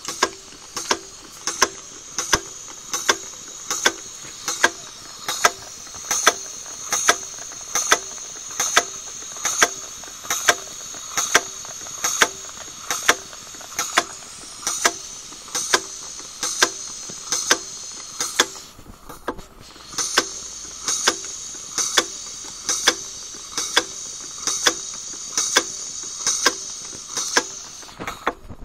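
Gas/petrol burner of a model steam boiler running with a steady hiss, over which a sharp mechanical click repeats evenly about twice a second. The hiss briefly fades about two-thirds of the way through.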